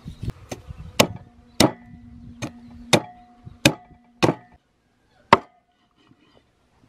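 A blade chopping down onto wood: about nine sharp strokes at an uneven pace of roughly one every half second, the last one after a short pause.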